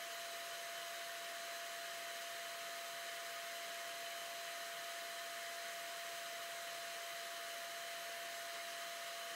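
Sandblasting gun in a blast cabinet blasting abrasive onto a small metal oil bottle: a steady, even hiss of compressed air with a thin constant whistle running through it.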